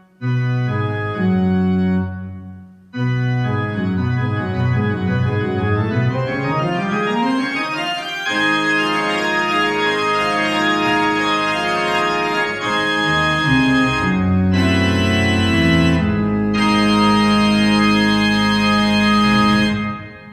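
Organ playing the closing bars of a piece. Detached chords with two short breaks open the passage, then a stretch of quickly moving notes builds into full held chords. A long final chord is released near the end and dies away in the church's reverberation.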